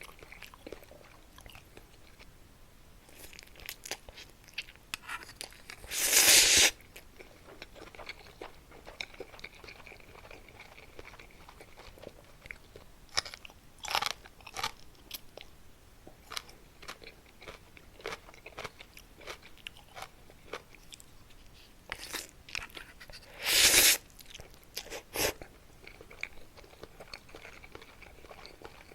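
Close-miked crunching and chewing of Muktaekkang, a crisp Korean snack, in scattered bites and crackles with pauses between them. Two louder, longer crunching bursts come about six seconds in and again about 24 seconds in.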